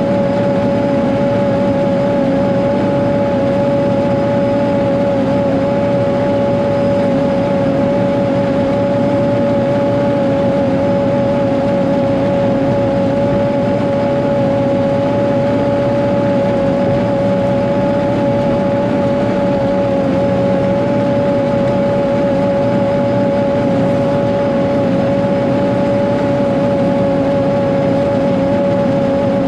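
Caterpillar 140G motor grader's diesel engine running steadily as the machine travels, with a steady high whine over the engine note.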